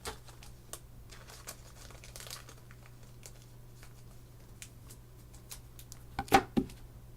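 Plastic and paper crinkling with scattered light clicks from handling trading cards and their packaging, with a louder burst of crinkling about six seconds in. A faint steady hum underneath.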